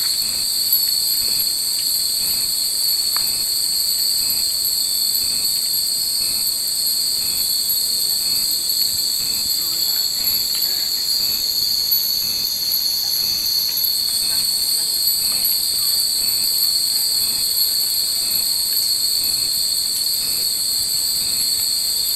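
A steady, high-pitched shrill drone, unchanging throughout, with faint light rings about once a second from many hanging glass wind chimes (furin).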